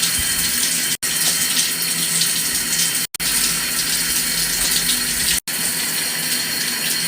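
Shower water running steadily in a spray, cutting out briefly three times.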